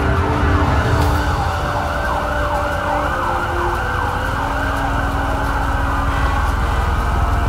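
Emergency vehicle siren: a fast yelp of quick rising and falling sweeps, then a slow wail that falls about halfway through and rises again near the end, over a low steady rumble.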